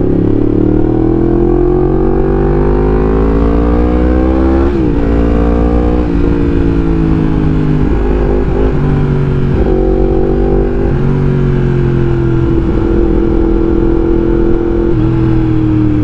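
2019 Yamaha MT-10's CP4 crossplane inline-four, with its uneven firing order, running through an Akrapovic exhaust while the bike is ridden. The revs climb steadily for about five seconds, dip sharply at an upshift and climb again, then ease off and settle to a steady, slowly falling cruise.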